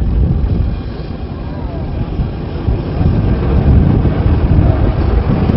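Heavy wind buffeting on the microphone, a low uneven rumble, with the water tanker truck's engine running beneath it.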